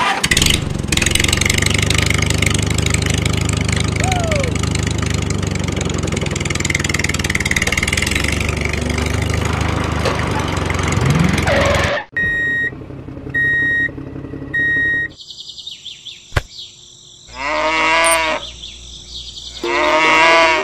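Tractor engine running steadily for about twelve seconds, then cutting off suddenly. Three short beeps follow a second apart, then two cow moos near the end.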